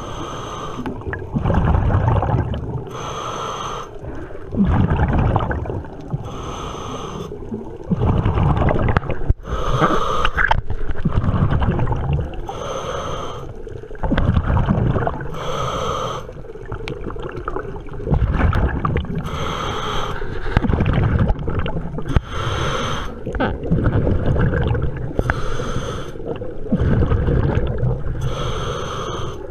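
Scuba diver breathing through a regulator underwater: a hissing inhale about every three seconds, alternating with the bubbling rumble of each exhalation.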